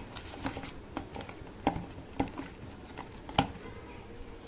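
Hands working salt and turmeric into raw hilsa fish heads in a plastic tub: irregular soft knocks and clicks as the heads are turned and rubbed, the loudest about three and a half seconds in.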